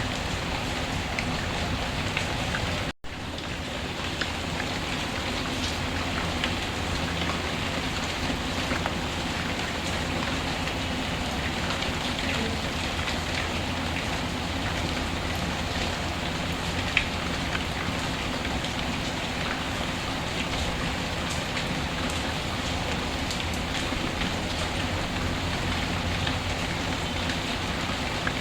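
Steady rainfall with scattered sharp ticks and pops of a crackling wood fire, one pop standing out about seventeen seconds in. The sound cuts out for an instant about three seconds in.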